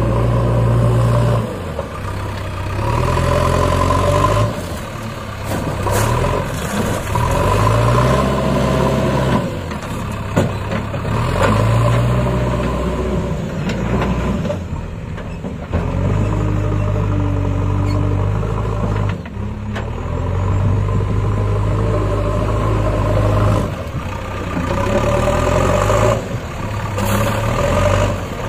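JCB 3DX backhoe loader's diesel engine running under hydraulic load, revving up and dropping back again and again as the front loader bucket digs into a sand pile and lifts, with a few sharp knocks from the bucket and arms.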